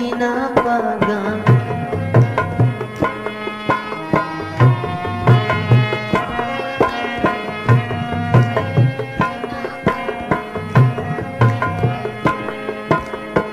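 Instrumental passage of a devotional bhajan: tabla keeping a steady rhythm with deep bass strokes under a melodic accompaniment.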